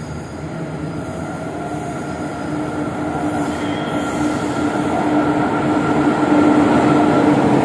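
Electric metro train pulling into a station platform, its running rumble and a steady humming tone growing steadily louder as it approaches.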